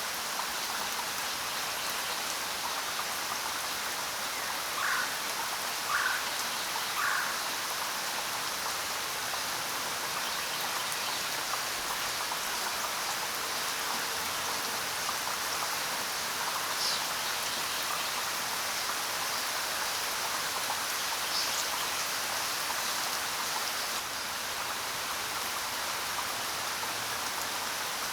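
Steady rain falling, with a few short bird chirps: three in quick succession about five to seven seconds in, and two fainter, higher ones later.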